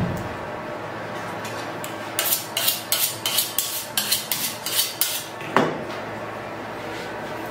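A kitchen knife being sharpened: about a dozen quick, ringing metal scraping strokes in a row, starting about two seconds in, followed by a single knock.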